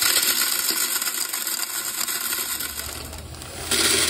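Reese's Pieces pouring from a bag into a clear plastic candy-machine canister: a dense rattle of small hard-shelled candies hitting the plastic and each other. It eases off about three seconds in and picks up again near the end.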